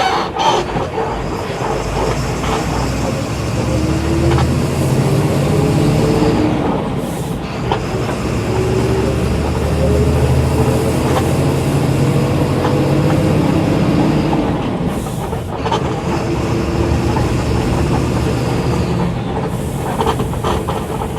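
Volkswagen Volksbus 17.230 EOD bus diesel engine accelerating under load. The pitch climbs, drops at a gear change about seven seconds in, climbs again, drops at a second gear change around fifteen seconds, and climbs once more, with body rattles throughout.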